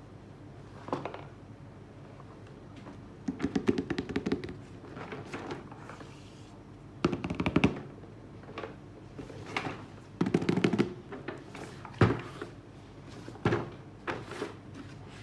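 Packaging and a toy remote-control car being handled: irregular bursts of rustling and clicking with dull knocks, a sharp knock about twelve seconds in.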